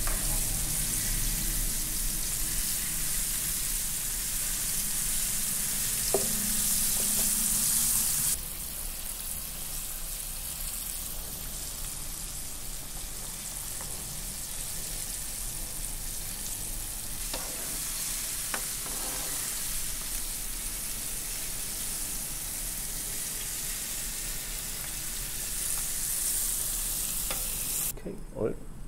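Cornstarch-coated salmon head pieces deep-frying in hot oil in a pan: a steady, busy sizzle, quieter from about eight seconds in, with a few light knocks. The sizzle cuts off near the end.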